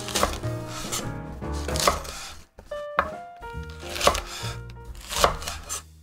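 Chef's knife slicing through fresh green chillies and knocking on a wooden cutting board, one crisp cut about once a second, over background music.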